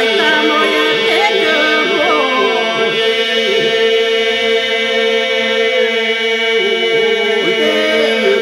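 Unaccompanied Albanian Labë iso-polyphonic folk singing: voices hold a steady drone (iso) while a lead voice ornaments the melody above it. The chord breaks off and fades near the end.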